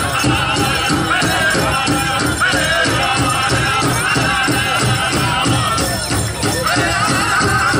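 Powwow drum group performing a chicken dance song: a large drum struck in a steady, fast beat under high-pitched singing, with jingling of bells.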